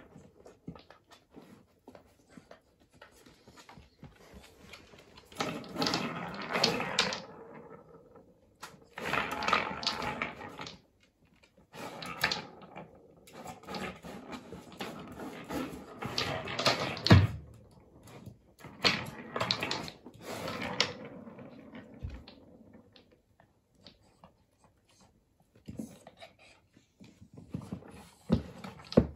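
Wooden balls rolling and clattering round the tracks of a three-tier wooden ball-tower cat toy as a dog paws and noses at it. The sound comes in several bursts a few seconds long, with one sharp knock partway through.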